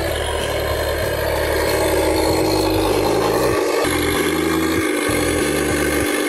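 Simulated engine sound from an electronic RC sound module in a Tamiya M1025 Hummer RC truck, played through its speaker as the truck moves. The engine note jumps between idle and rev pitches in abrupt steps rather than gliding.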